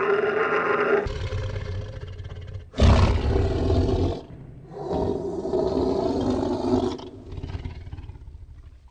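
A large animal giving a series of loud, drawn-out calls, each lasting one to two seconds, with short gaps between them.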